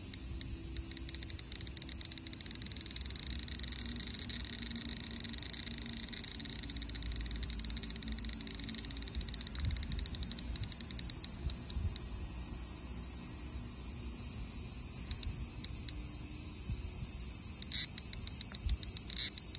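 Large brown cicada (aburazemi) singing: a continuous high buzz of rapid pulses, loudest over the first half and dropping away about twelve seconds in. Two short, louder bursts come near the end.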